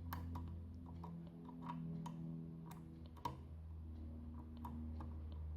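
Irregular small clicks and scrapes of a lock pick and tension wrench working the pins inside a Eurospec MP10 cylinder lock, over a steady low hum.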